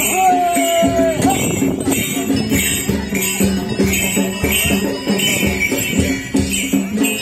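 Folk dance music with a steady drum beat and regular jingling about twice a second. A single held note, falling slightly in pitch, sounds for about a second near the start.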